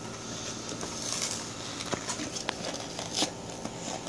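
Plastic toy packaging crinkling and rustling as a child's hands work it open, with a few sharp crackles about two to three seconds in.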